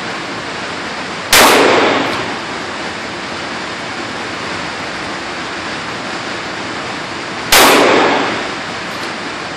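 Two shots from a Ruger SP101 .357 Magnum revolver, about six seconds apart, each ringing out with a reverberant tail off the walls of an indoor shooting range.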